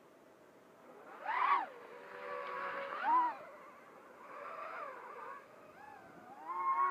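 Racing quadcopter's brushless motors (Cobra 2204 2300kV on 5-inch three-blade props) whining as the throttle is punched and cut, the pitch swinging up and down in several swells. The loudest swells come about a second and a half in, around three seconds, and near the end.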